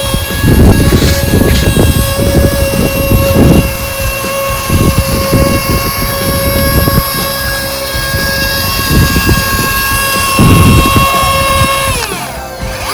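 Small electric motor of a homemade RC model running with a steady high whine, winding down in pitch near the end, over uneven low rumbling.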